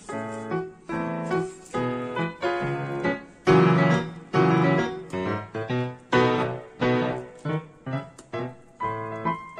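Background piano music: a melody of struck notes and chords, about two a second, each ringing and fading.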